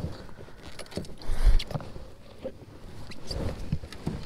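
Knocks and bumps of gear being handled on a plastic fishing kayak, with a loud low thump about one and a half seconds in.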